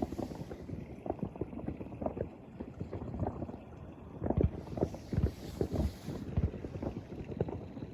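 Distant fireworks going off in a dense, continuous barrage of low thuds and pops, several a second and overlapping, with the heaviest bursts about halfway through.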